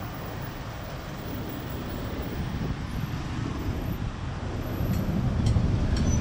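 Road traffic on a city street: a steady rumble of passing cars that grows louder near the end.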